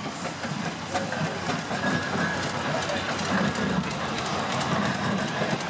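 Steam traction engine running slowly, its motion and gearing giving a rapid run of clanks that grows louder near the end, with a faint steady hiss of steam.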